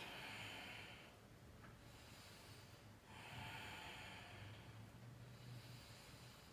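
A woman's slow, deep breaths, faint and hissing: one breath tails off about a second in, and a longer one swells from about three seconds in and fades near the end.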